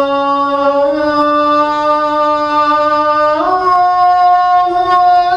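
A man's voice calling the adhan, the Islamic call to prayer, in long drawn-out held notes that step up in pitch about a second in and again about three and a half seconds in.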